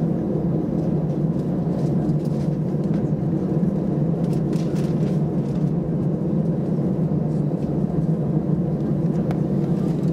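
Airbus A320 jet engines running at low taxi power, heard from inside the cabin over the wing as a steady low rumble and hum.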